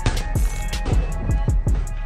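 Background music with a steady, quick drum beat: a thudding kick drum about three times a second under sharp cymbal ticks.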